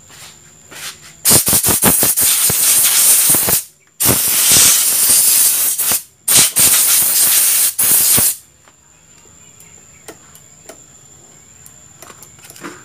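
Aerosol spray can hissing in three long bursts of about two seconds each, with short breaks between, as it sprays onto a motorcycle's front disc brake caliper.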